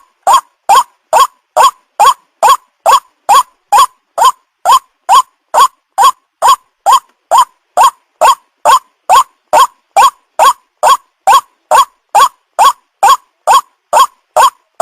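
White-breasted waterhen (ruak-ruak) lure call for young birds: a short call rising in pitch, repeated evenly about twice a second without a break.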